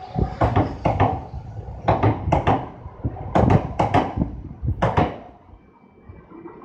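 Wheels of a departing E2-series Shinkansen clacking over rail joints and points, the knocks coming in quick pairs as each bogie passes. The clacking stops about five seconds in, leaving a faint hum.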